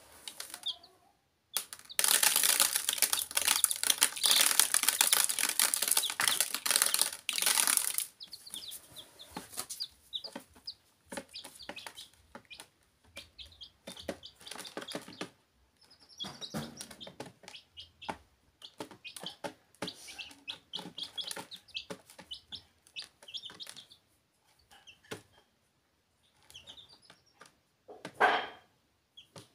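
Dyed baby chicks in a plastic tub cheeping in short high chirps, among many short taps and scratches. A loud noisy stretch of about six seconds comes about two seconds in, and a sharp loud burst near the end.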